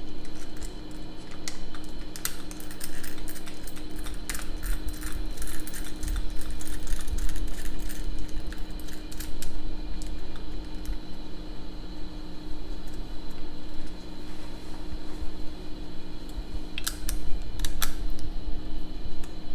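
Cables and a small plastic gauge housing being handled and pushed into place: scattered light clicks and rattles, thickest in the first half and again near the end, over a steady low hum.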